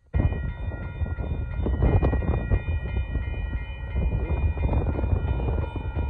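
Union Pacific freight locomotive's air horn sounding one long, steady, multi-note blast that starts suddenly, over a low rumble from the approaching train.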